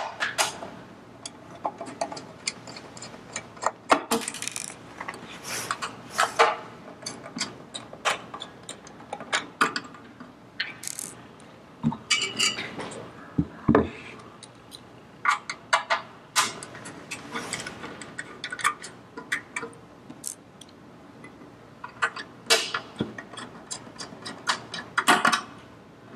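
Irregular metallic clicks and ticks, in clusters, as a ball driver backs out the cover screws of a pump's sheet-metal housing, with a few low knocks about halfway through as the housing is turned on the table.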